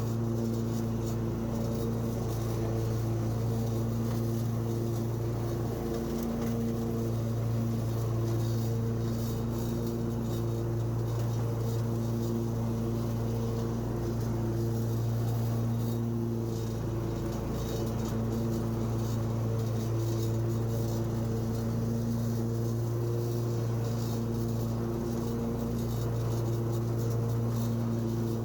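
Husqvarna lawn mower engine running steadily at a constant speed while mowing, a continuous even hum with no change in pitch.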